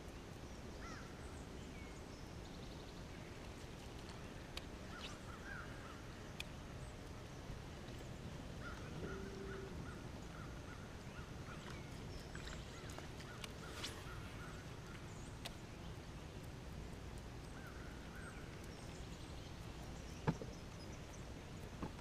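Quiet lakeside ambience: a steady low background hum with scattered faint bird chirps, and a few light clicks, the sharpest one near the end.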